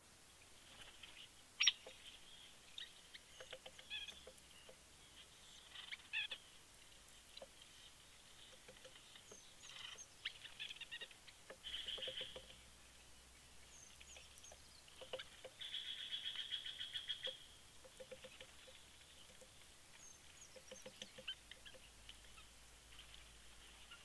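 Small birds calling: scattered short chirps and chips, a single sharp, loud note about a second and a half in, and a fast trill lasting about two seconds past the middle.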